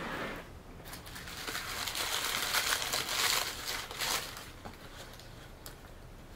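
Paper food wrapper crinkling and rustling as a wrapped chicken sandwich is handled and opened. It starts about a second in, is loudest near the middle and fades out after about three and a half seconds.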